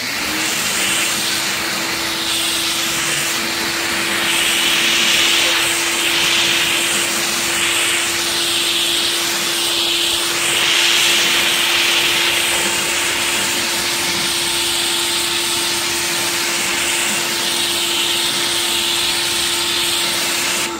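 Greenworks 1700-PSI electric pressure washer running steadily while spraying soapy water through its foam cannon bottle attachment. A loud hiss of spray sits over the motor and pump's steady hum.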